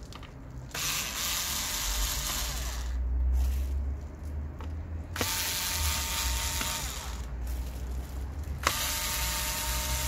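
Small cordless electric screwdriver running in three spurts of about two seconds each, backing out the screws that hold a laptop motherboard, its motor and gears whirring.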